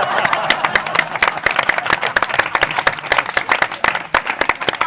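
Audience applauding: dense, irregular clapping from many hands, with crowd voices cheering at the start that fade within the first half second.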